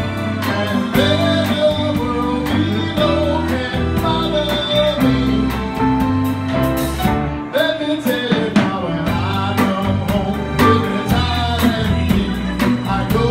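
Live band playing a mid-tempo soul-pop song: drum kit keeping a steady beat under electric guitar, bass guitar and keyboard, with a man singing lead into a handheld microphone.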